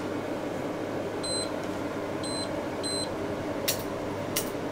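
Touch-control cooktop beeping as its heat setting is keyed in: three short high beeps, about a second apart. There is a steady fan-like hum underneath and two brief rustling hisses near the end.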